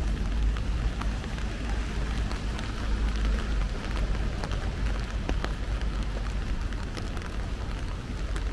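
Steady rain falling, with scattered sharp drip ticks over an even hiss and a steady low rumble underneath.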